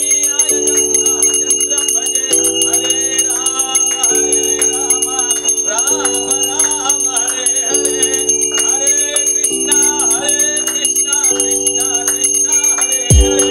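Music: a singing voice over held chords that change about every two seconds, with a brass puja hand bell ringing.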